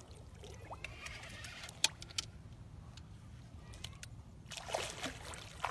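Hooked king salmon thrashing and splashing at the surface beside the boat, over a steady low hum. A couple of sharp clicks come about two seconds in, and a louder burst of splashing starts near the end.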